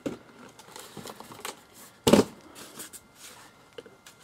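A long cardboard rifle box being opened by hand: light rustling and scraping of the lid and packing, with one sharp knock about two seconds in.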